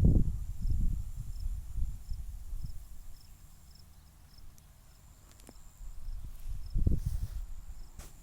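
Low gusty rumble of wind on the microphone, loudest at the start and again near the end, over a faint high bird chirp repeated at a steady pace.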